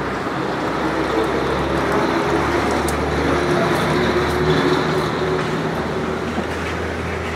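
Steady mechanical rumble with a constant low hum, with a few faint ticks about three seconds in.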